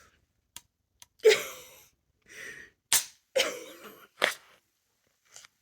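A woman coughing a few times, short rough bursts that start hard and fade, with a few sharp knocks between them. She says she is a little sick.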